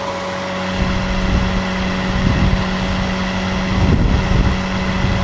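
Vintage Rex-Ray model 38100 hair dryer running: a steady motor hum over the even rush of its fan's air.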